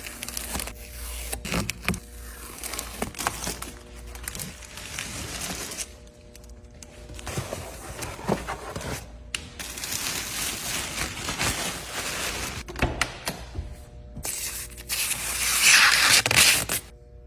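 Protective plastic film being peeled and pulled off a new car's bodywork: crackling, rustling and scraping in long strokes, loudest in a long rip near the end.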